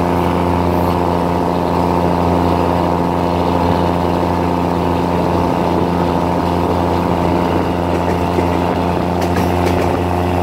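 A train's diesel engine drones steadily as the train runs, heard from inside the carriage; the same low hum and tones hold unchanged throughout.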